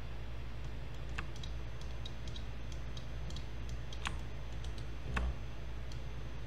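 Scattered clicks of a computer mouse and keyboard, sparse and irregular, with three louder clicks: about a second in, around four seconds and around five seconds.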